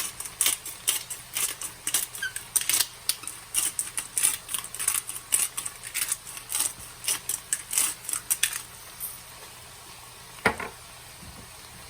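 A pepper grinder being twisted over the pan, giving a run of quick, crisp grinding clicks about three or four a second that stop after about eight seconds, followed by a single knock about ten seconds in.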